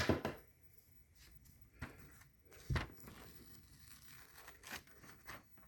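Household scissors test-cut, a few faint snips and clicks of the blades, the sharpest about two and three-quarter seconds in; they are cutting all the way to the tip.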